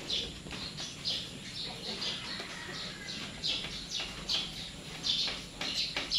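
Newborn piglets squealing in short, high-pitched cries that repeat several times a second and grow louder near the end.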